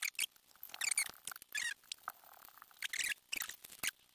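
Plastic RC transmission housing and parts handled and fitted together by hand: scattered light clicks with a few short squeaks.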